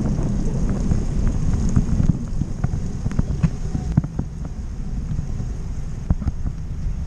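Wind rushing over the microphone of a bike-mounted camera as the bicycle coasts fast down a wet road, with scattered short clicks and knocks over the rumble.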